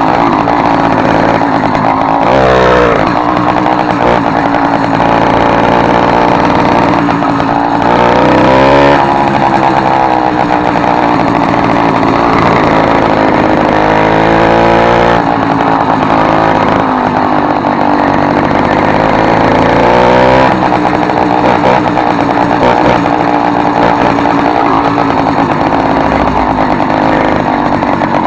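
Motorized bicycle's small two-stroke engine, its exhaust opened up for a louder note, running loudly under way; its pitch rises and falls several times as the throttle opens and closes.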